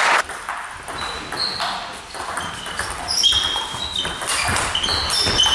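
Table tennis rally: the ball is struck by bats and bounces on the table in a quick run of sharp, short pings starting about a second in.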